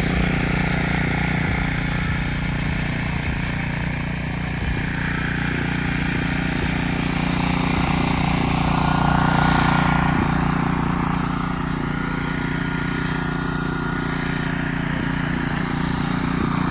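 Engine-driven pressure washer running steadily: a constant motor drone under the hiss of the high-pressure water jet spraying the driveway bricks. The spray hiss grows louder about halfway through, then eases.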